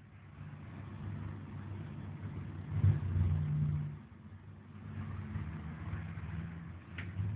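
A low engine-like hum that rises and falls in loudness, loudest about three seconds in.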